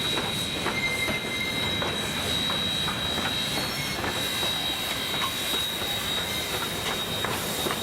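Heritage train rolling along the track: a steady rumble of wheels on rail with frequent clicks from the carriages, and a thin high squeal held throughout.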